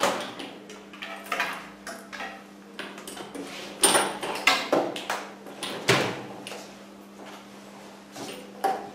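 Irregular knocks, clicks and rustles of small tools and objects being handled and set down on a wooden table, with a cluster of louder knocks in the middle, over a steady low electrical hum.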